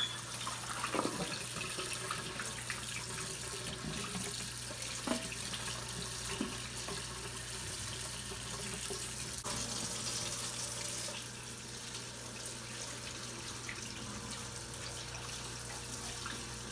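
Kitchen tap running steadily into a stainless steel sink, the water splashing over raw chicken breasts held in the stream, with a few light knocks.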